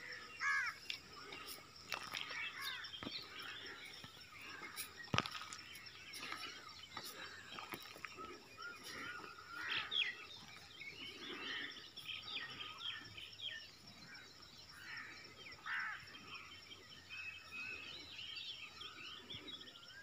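Small birds chirping and calling faintly and continuously in short quick twittering notes, with one sharp knock about five seconds in.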